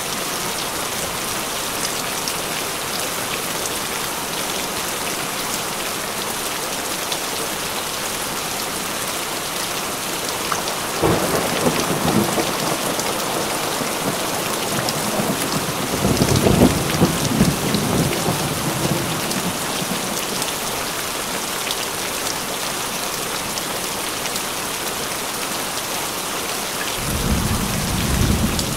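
Steady rain falling on foliage, with thunder rumbling in three spells: about eleven seconds in, again a few seconds later (the loudest), and once more near the end.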